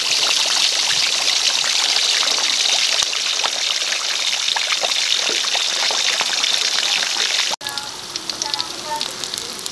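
Pork leg deep-frying in hot oil in a wok: a dense, steady sizzle and crackle. About seven and a half seconds in it cuts to a quieter, sparser crackle as the browned pork fries on.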